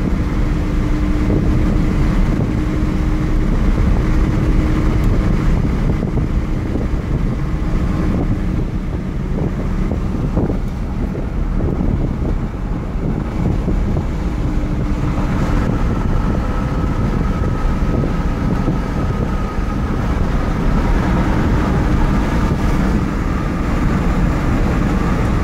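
A car driving, heard from inside the cabin: a steady low rumble of engine and road noise, with a thin steady whine joining about halfway through.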